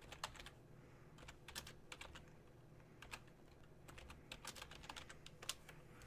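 Faint, irregular light clicking of typing on a computer keyboard, a few keystrokes at a time with short gaps.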